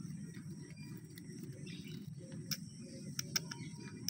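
A cat gnawing and chewing on a bone, heard as a few sharp crunching clicks in the second half over a steady low background hum.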